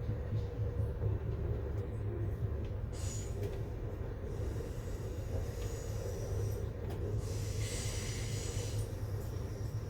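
Amtrak Empire Builder passenger train running on the rails: a steady low rumble, with a short stretch of higher rushing noise about three quarters of the way through.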